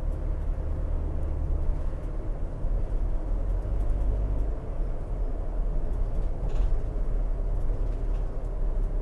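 Car tyres running on a highway surface, heard inside the cabin as a steady low rumble with a faint moaning hum that comes up through the bottom of the vehicle. The driver believes something in the road surface is making the tires do this.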